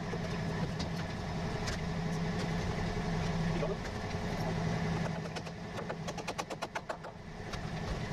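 An engine running steadily at a low hum for several seconds, then a quick run of rapid clicks for about a second after it eases off.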